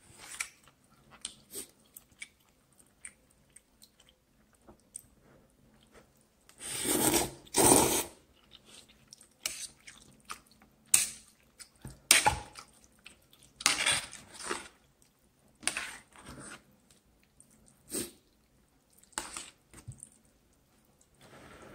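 A person eating noodles: chewing, with a series of short loud slurps, the longest and loudest about seven seconds in. Light clicks come from metal chopsticks against a metal pot.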